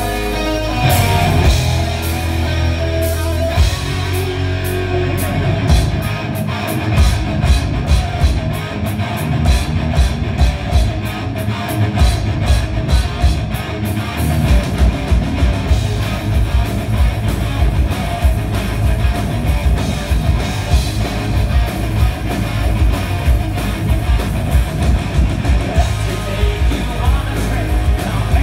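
Heavy metal band playing live: electric guitars, bass and a drum kit, with the drums settling into a fast steady beat about four seconds in.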